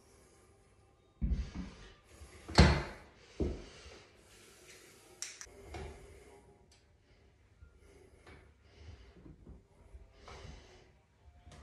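Three heavy metal clunks from a home-gym leg machine being handled, the loudest about two and a half seconds in, followed by softer breathing as the lifter rests.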